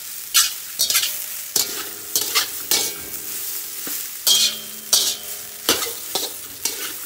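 Rice sizzling in a hot wok while a metal spatula scrapes and tosses it, in irregular strokes a little under two a second over a steady frying hiss.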